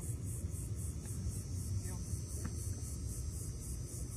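Insects chirping high in a steady pulsing rhythm, about five pulses a second, over a steady low rumble.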